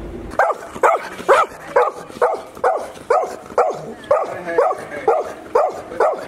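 Golden retriever barking steadily, about two short barks a second.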